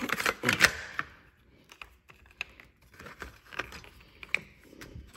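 Hard plastic clicks and knocks as battery covers are handled and fitted onto a mower's battery pack. A cluster of loud clicks comes in the first second, then scattered faint ones.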